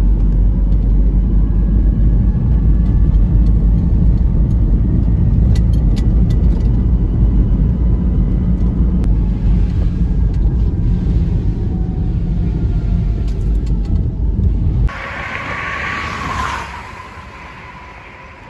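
A car driving, heard from inside the cabin: a loud, steady low rumble of engine and road noise. About fifteen seconds in it cuts off suddenly to quieter, hissy outdoor noise that fades away.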